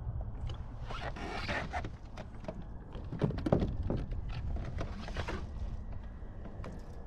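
Rustling and scraping of clothing and fishing gear as an angler twists round in a kayak seat and pulls out a rod, with rustling about a second in and again near five seconds, and a cluster of knocks about three seconds in. A steady low rumble runs underneath.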